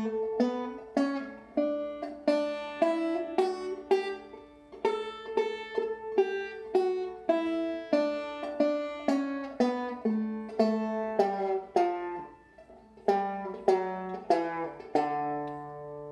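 An 11-inch walnut open-back banjo with a goatskin head, played clawhammer, slowly picking through a double D scale one note at a time, about two notes a second. The playing falters briefly about twelve seconds in before the notes resume.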